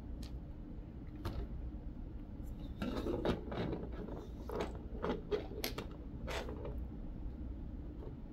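Small plastic clicks and taps of Lego pieces being handled, pressed together and set down on a tabletop, most of them in a run from about three seconds in, over a steady low hum.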